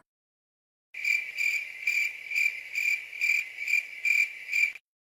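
Crickets chirping sound effect, the stock gag for an awkward silence: high chirping that pulses about twice a second, starting about a second in and stopping just before the end.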